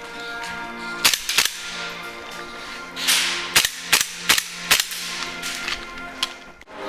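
Airsoft guns firing: two sharp shots about a second in, then a quick string of four more shots a few seconds later, over background music.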